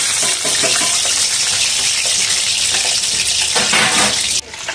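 Large whole fish deep-frying in hot oil in a wok: loud, steady sizzling and crackling of the oil around the fish, with a sudden brief drop near the end.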